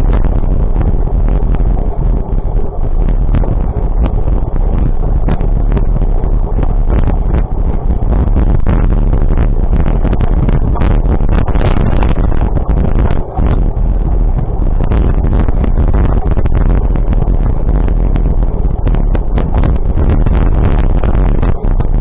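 Steady rumble of a moving vehicle with heavy, fluttering wind buffeting on the microphone.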